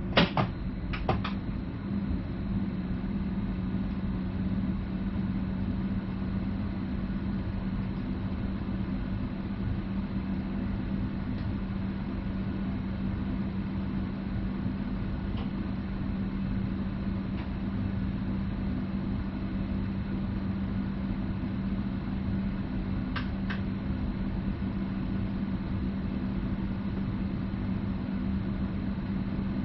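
Steady low hum of a Stadler FLIRT (Sm5) electric multiple unit heard from the driver's cab, with a couple of sharp clicks in the first second or so and another about two-thirds of the way through.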